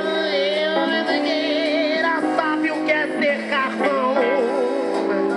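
Live band music with singing: a lead vocal line wavers in vibrato over held chords from the band.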